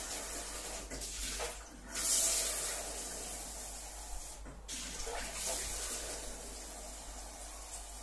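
Water running from a kitchen tap, rinsing and filling an espresso machine's water tank; the flow is strongest about two seconds in and shifts briefly a couple of times.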